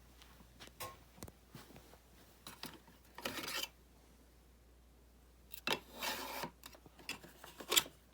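Light handling noises: scattered clicks and knocks, with two short rubbing scrapes, about three seconds in and about six seconds in. No motor is running.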